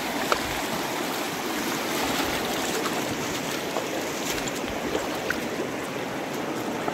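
Fast, shallow river running over stones: a steady rush of flowing water, with a few faint clicks.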